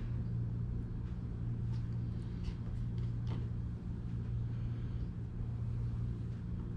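A steady low hum runs throughout, with a few faint light clicks of a metal spoon against a glass baking dish as butter is dabbed onto fish fillets.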